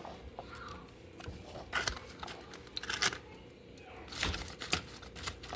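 Garlic being mashed in the kitchen: several sharp knocks and taps at uneven intervals, the strongest in the second half.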